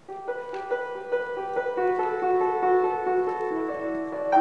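Upright piano beginning to play a slow piece, starting suddenly with sustained notes that ring together and grow fuller over the first couple of seconds.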